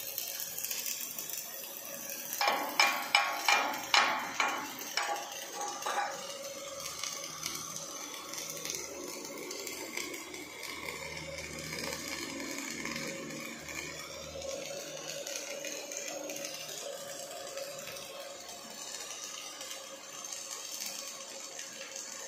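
A run of about seven loud, ringing metallic clanks, two or three a second, a few seconds in. Then the steady hiss of an OTC robotic wire-fed (MIG) welding torch running a bead along a steel frame.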